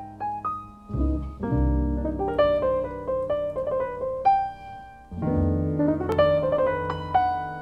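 Background music: a piano playing a quick run of single notes, with deep bass notes coming in about a second in and again about five seconds in.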